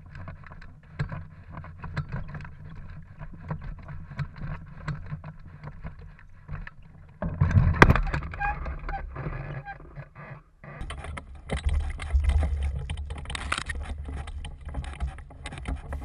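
Footsteps crunching on gravel with the rattling and knocking of a hang glider's aluminium frame as it is carried by hand. There is one loud knock about halfway through, and a steady rumble of wind on the microphone over the last few seconds.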